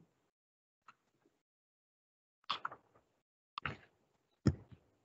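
Four short knocks heard over a video call, the first faint and the last three about a second apart, with dead silence between them.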